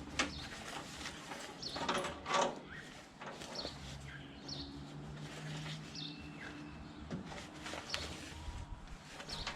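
Plastic buckle clips of a canvas tool roll bag being unclipped and the bag handled, a few clicks and rustles, with birds chirping in the background.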